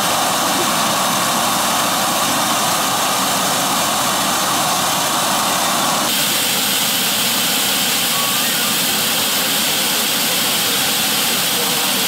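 Natural gas jetting from a ruptured yellow polyethylene gas line that an excavator struck: a loud, steady hiss.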